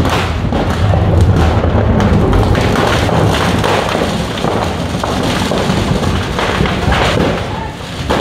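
Firecracker stock burning in a shop fire, going off in a dense, loud run of bangs and crackles over a steady low rumble.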